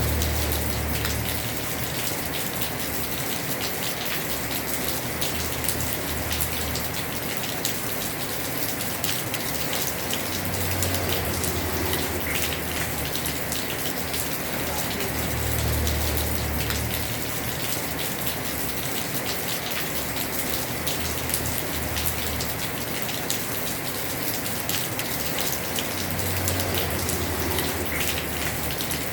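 Heavy rain pouring steadily on a house roof, a dense hiss full of fine drop ticks. A low rumble swells and fades about four times.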